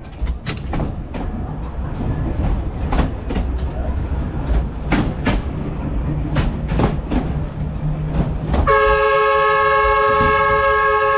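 A rail vehicle running with a low rumble and irregular clicks of wheels over rail joints. About nine seconds in, a loud horn sounds a steady chord of several pitches and is held for about three seconds.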